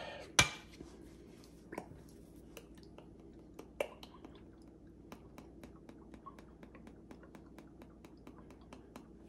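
A bottle of Frank's RedHot sauce being handled and tipped over a bowl: one sharp click about half a second in, a few smaller knocks, and faint scattered ticks and drips as the sauce is shaken out of the bottle's narrow spout.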